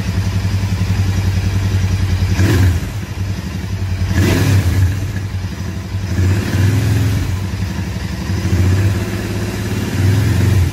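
Royal Enfield Continental GT 650's 648 cc parallel-twin engine running through its stock exhaust. It idles steadily, and the throttle is blipped now and then so the revs rise and fall.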